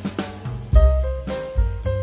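Instrumental background music with a drum kit keeping a beat over bass and sustained pitched notes.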